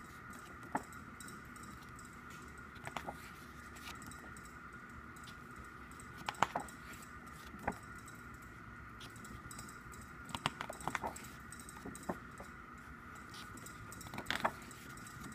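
Pages of a CD album's photo book being turned by hand: short clicks and rustles every second or two, loudest about six, ten and fourteen seconds in, over a faint steady high-pitched hum.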